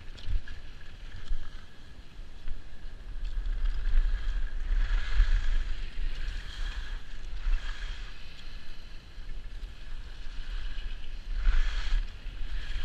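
Wind buffeting an old GoPro's microphone while skiing, with the hiss and scrape of skis on packed snow that swells about five seconds in and again near the end.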